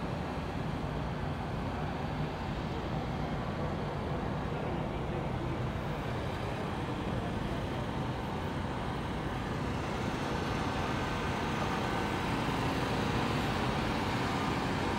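Steady outdoor vehicle rumble with a low hum, growing a little louder near the end.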